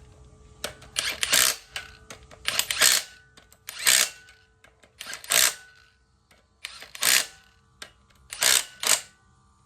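Hand ratchet wrench clicking in about ten short strokes, singly and in quick pairs with pauses between, as the cover plate bolts are snugged down by feel rather than to a torque spec.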